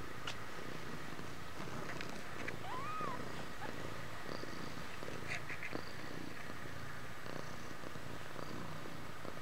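Nursing mother cat purring steadily while being stroked, with a brief high squeak about three seconds in.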